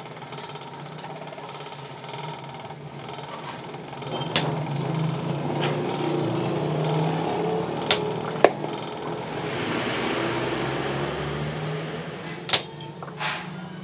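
Hammer striking a steel punch held on an anvil: five sharp metallic strikes a few seconds apart, over a steady background rumble of street traffic.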